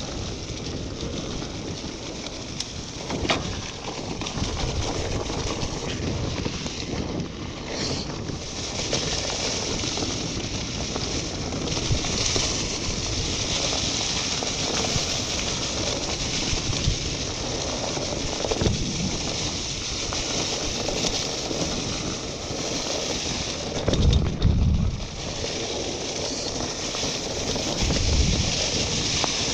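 Mountain bike rolling fast along a dirt forest trail: a steady rush of wind on the camera's microphone mixed with tyre noise on the ground, broken by a few louder knocks as the bike jolts over bumps, the biggest near the end.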